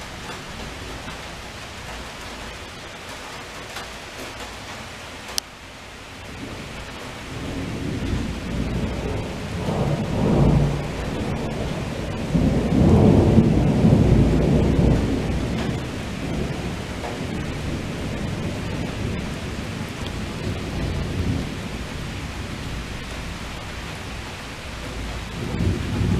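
Thunderstorm: steady heavy rain hissing, with one sharp click about five seconds in. Then a long roll of thunder builds from about seven seconds, is loudest between ten and fifteen seconds, and dies away, with another rumble rising near the end.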